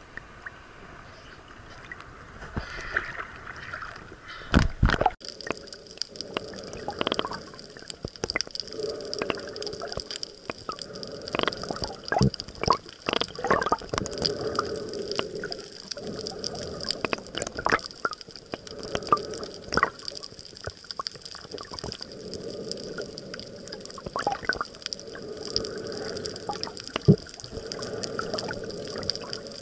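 Water splashing and gurgling over the camera as it dips below the surface about five seconds in, then muffled underwater sound over a coral reef with many small sharp clicks and crackles.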